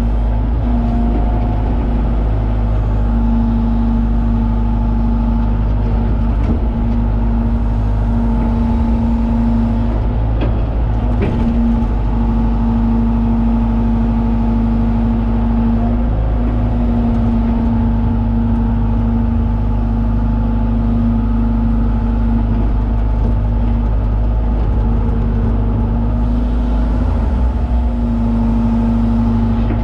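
John Deere 190E excavator's diesel engine running steadily while digging, a constant drone whose pitch dips briefly a few times. A couple of faint knocks about ten to eleven seconds in.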